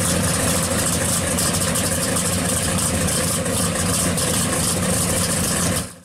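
1970 Plymouth Cuda pro street car's engine idling steadily, then fading out quickly near the end.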